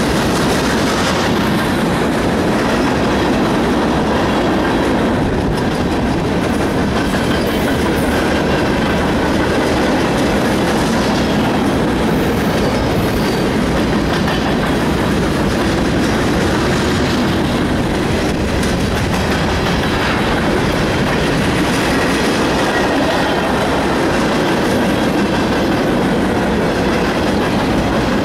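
Freight train's boxcars and bulkhead flatcars rolling past close by, their steel wheels running on the rails in a loud, steady clatter.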